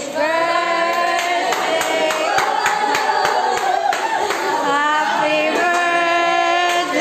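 A group of young people singing together in chorus, holding long notes, with scattered hand claps, as a birthday greeting.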